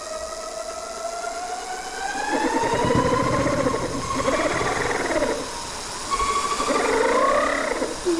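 Bafang G60 front hub motor spun up by throttle with the wheel off the ground: a whine rising in pitch over the first few seconds, joined about two and a half seconds in by a wavering scraping that swells and fades. The rider puts the scraping down to something rubbing inside the motor under power.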